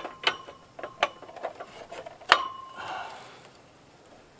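Metal clinking and knocking as small steel solar lanterns are handled and hung on the arms of a steel-tube street light. It is a run of irregular sharp clicks, a few of them ringing briefly. The loudest clank comes a little past two seconds in.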